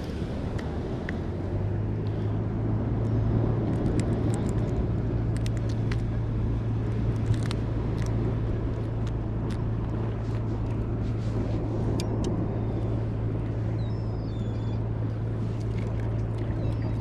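An engine runs steadily with a low, even hum, with scattered light clicks over it.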